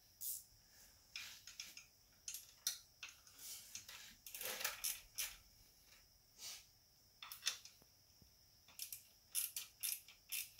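Faint, irregular clicks and clinks of a metal hand tool tightening the small light-bar bracket bolts onto lock nuts, some clicks coming in quick runs.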